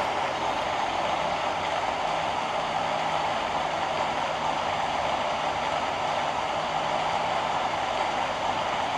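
Steady rain falling, an even rushing hiss that holds at one level without a break.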